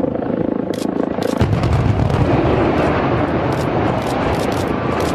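Building demolition by implosion: a run of sharp cracks, then a deep rumble of collapse that comes in suddenly about a second and a half in, with more cracks through it.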